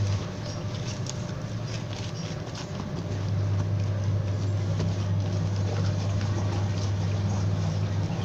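Steady low machine hum, weaker for about the first three seconds, with faint irregular ticks and taps over it.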